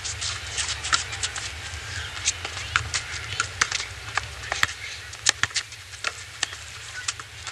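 Sounds of a basketball game on an asphalt court: irregular sharp knocks and slaps of the ball bouncing and players' feet on the court, over a steady low hum.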